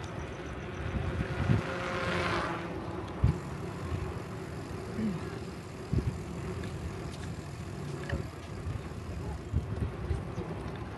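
Riding noise picked up by a camera mounted on a bicycle: steady low rumble with wind on the microphone, a swell of hiss about two seconds in, and several short knocks from the bike over bumps.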